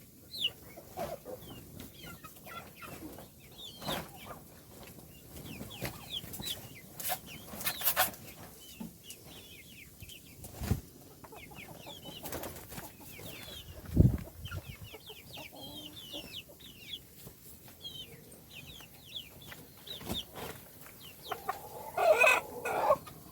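Baby chicks chirping steadily in many short, high peeps, with a few sharp knocks in between and one louder, lower call near the end.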